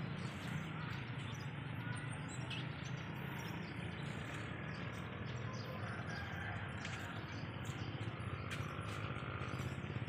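Outdoor ambience: a steady low background rumble with a few short bird chirps.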